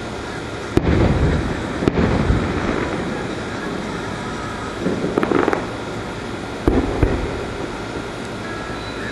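Aerial firework shells bursting overhead: several sharp booms at irregular intervals, two in the first two seconds and two close together later on.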